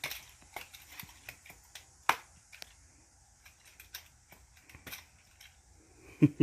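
Irregular light clicks and taps of small objects being handled, the sharpest one about two seconds in.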